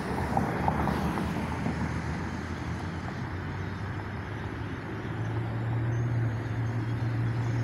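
Steady traffic noise of vehicles running, with a low engine hum that grows stronger about five seconds in.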